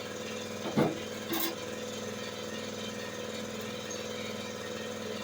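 A steady, engine-like machine hum, with two short knocks about a second in; the first knock is the louder.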